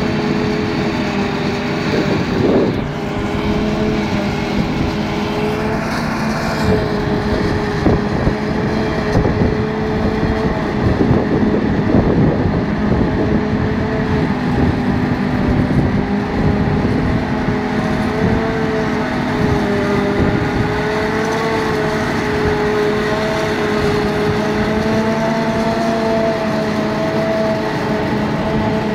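John Deere tractor diesel engines and a PTO-driven JF 1350 trailed forage harvester running together while chopping grass for silage: a steady mechanical drone whose pitch drifts slightly now and then.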